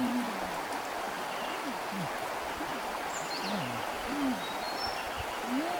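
Repeated low hooting animal calls, each rising then falling in pitch, about one or two a second and at slightly different pitches, over a steady hiss of running water or rain, with a few brief high bird chirps.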